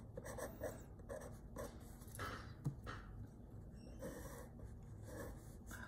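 Faint scratching of a graphite pencil on paper in a series of short strokes, sketching a row of small arches.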